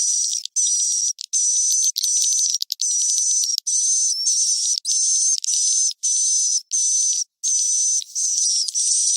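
Edible-nest swiftlet roosting calls from a swiftlet-house 'inap' lure recording: high, buzzing chirps with a steady whistle-like tone, each about half a second long, repeating with brief breaks roughly every 0.7 s. The track is filtered to remove everything low, leaving only the high calls.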